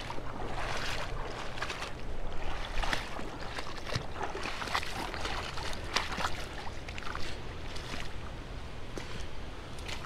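River water flowing steadily, with irregular sharp clicks and knocks throughout.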